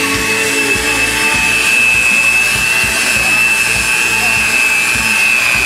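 Handheld electric mixer running steadily with a constant high whine, its beaters churning thick chocolate batter in a plastic bowl.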